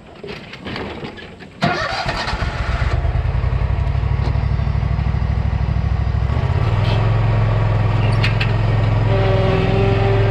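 Commercial lawn mower engine starting about a second and a half in, then running steadily with its pitch stepping up about halfway through as it is throttled up. A higher steady whine joins near the end.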